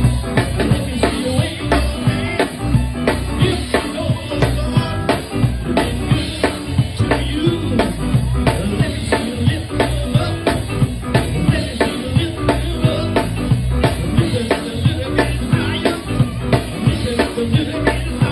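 A live band with drum kit, bass and keys playing a groove, the drums keeping a steady beat over a moving bass line.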